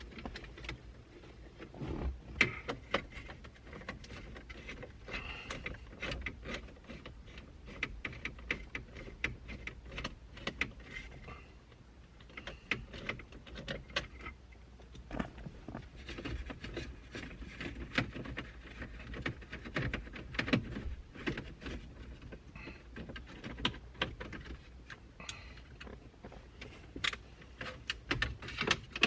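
Irregular clicks, taps and light rattles of a hand tool loosening 8 mm screws on the radio bracket, with the plastic dash trim being handled.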